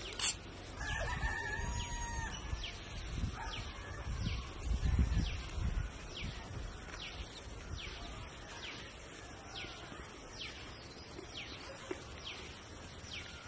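A rooster crowing once about a second in, then a bird repeating a short falling call about once a second. A low rumble swells around five seconds in.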